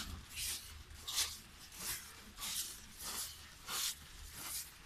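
Footsteps of someone walking in a disposable protective coverall on a concrete floor: a swish of rustling and scuffing with each step, about one and a half steps a second, over a faint low hum.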